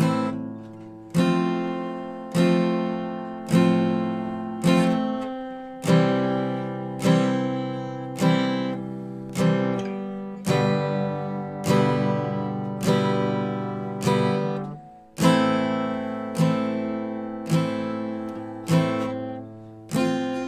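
Epiphone Texan all-solid spruce-and-mahogany acoustic guitar played in slow strummed chords, about one strum a second, each chord ringing out and fading before the next. The guitar has its pulled-up bridge freshly reglued, and the owner says it sounds phenomenal.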